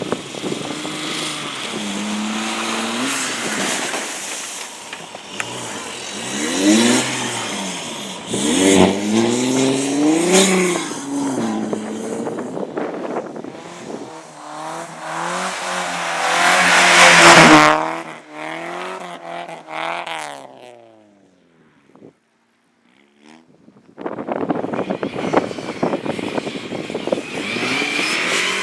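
Car engines on a race track, revving up and down repeatedly, with tyre noise. The loudest, most hissing stretch comes about two-thirds through and then dies away. After a brief near-silence, a rough, crackling engine sound starts again near the end.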